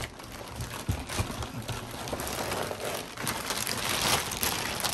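Clear plastic bag wrapped around a boxed solar inverter crinkling and rustling as the unit is handled and tilted in its cardboard box, with a few light knocks in the first second or so.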